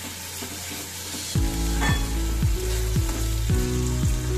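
Thick onion-tomato masala sizzling in oil in a steel kadai as a spatula stirs it; the masala is well fried down and starting to stick. About a second and a half in, background music with a steady beat starts and becomes louder than the sizzling.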